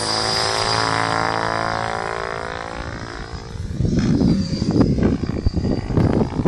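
Electric Mikado Logo 800 Xxtreme RC helicopter whining, its pitch falling steadily as it fades over the first three seconds. From about four seconds in, irregular low buffeting rumbles on the microphone take over.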